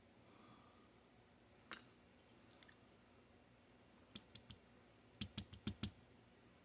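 Small metal lock parts clicking as they are handled while the dimple lock's core is taken apart: one sharp metallic click, then a quick run of three, then a run of five light clinks near the end.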